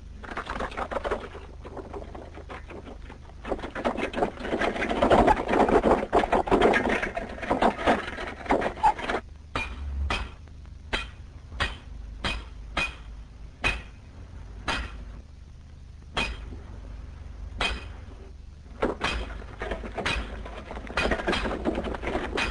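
Metal tools striking rock, with stones clattering in a rock tunnel. It begins as a dense, loud clatter, gives way about nine seconds in to separate sharp strikes at uneven intervals, and turns to dense clatter again near the end.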